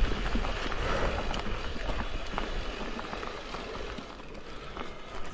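Mountain bike rolling down a rough trail: continuous tyre and ground noise with frequent small knocks and rattles from the bike over rocks, under a low rumble of wind on the microphone.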